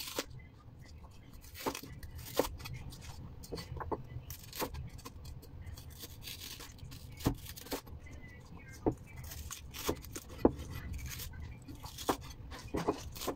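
Cleaver blade knocking on a wooden cutting board at irregular intervals as celery stalks are split lengthwise into strips.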